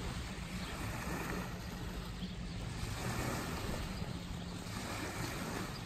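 Small lake waves lapping on a gravel shore, with wind, over a faint steady low hum.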